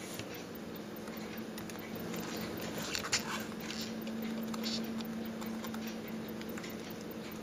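A few faint clicks and light scrapes of tweezers on a quartz watch dial and its small chronograph hands, over a steady low hum.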